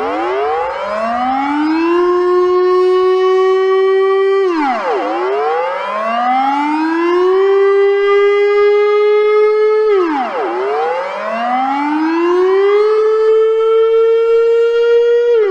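Civil defense siren wailing in repeated cycles. Each wail rises over about two seconds, holds its pitch for a few seconds, then drops quickly, with three wails in all.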